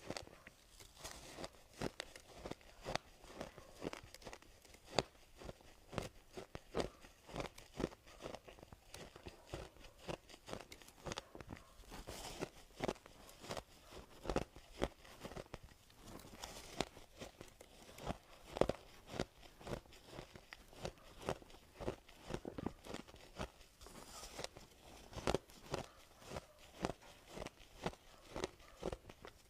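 Soft ice being bitten and chewed close to the microphone: a steady run of sharp, crackly crunches, about two a second.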